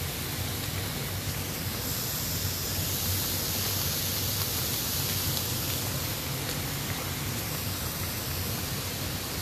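Hot tub jets and bubbles churning the water in a steady rushing hiss, with a low steady pump hum underneath.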